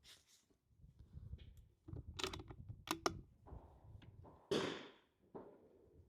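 Sharp metallic clicks and knocks of a single-shot .22 rimfire rifle being handled and its bolt worked between shots, a louder knock about four and a half seconds in, over low wind rumble on the microphone.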